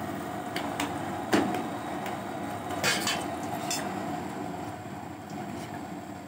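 Flatbread frying in hot oil in an aluminium pot, a steady sizzle, with a few sharp metal clinks and clatters of kitchenware, the loudest about a second and a half in.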